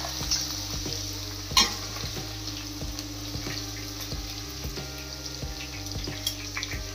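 Okra frying in hot oil in a stainless steel kadhai: a steady sizzle with small scraping ticks as the pieces are scooped out with a wire mesh skimmer, and one sharp metal clink about a second and a half in.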